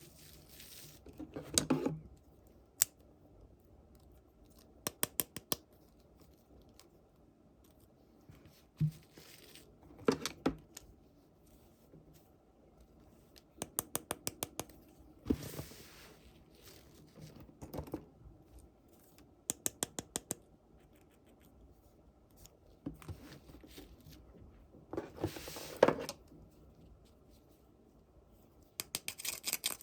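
Toy packaging being cut and opened by hand: every few seconds a burst of several quick snipping clicks, with a few longer rustling, tearing sounds between them.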